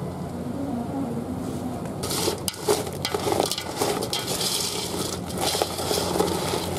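Whole freshwater crabs cooking in a steaming pot, stirred with chopsticks: from about two seconds in, the shells crackle and clatter over a hiss, after a steady low hum.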